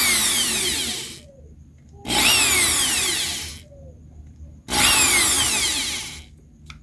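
Electric drill boring small holes through a cork brake pad backed by a wood block, run in three short bursts with pauses between. The motor whine drops in pitch through each run.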